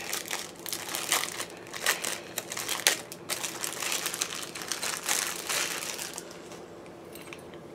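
Thin clear plastic packaging crinkling as it is handled and pulled open, a dense irregular run of crackles that dies down about six seconds in.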